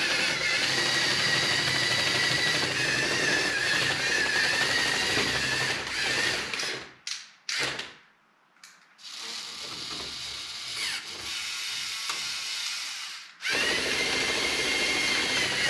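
Electric motors and plastic gear trains of a LEGO Technic tracked RC straddle carrier whining as the model is driven. The pitch wavers slightly. The whine stops for about two seconds around seven seconds in, comes back quieter for several seconds, then returns at full level near the end.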